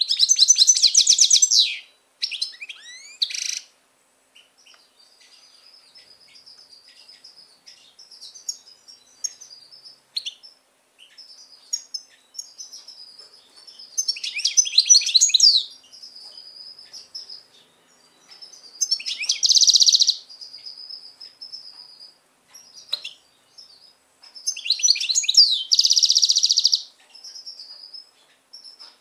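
European goldfinch singing: rapid, high twittering with loud bursts at the start and about 14, 19 and 25 seconds in, and quieter running twitter between them.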